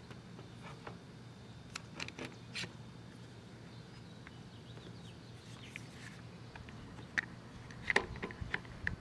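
One-handed bar clamps ratcheted tight on a plywood caul over reglued veneer. A few sharp clicks come about two seconds in, and a quicker run of clicks comes near the end.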